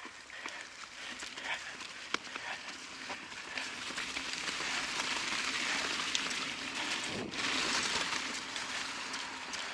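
Mountain bike tyres rolling over a dirt and gravel trail: a steady crunching hiss with scattered clicks and rattles, getting louder from about four seconds in.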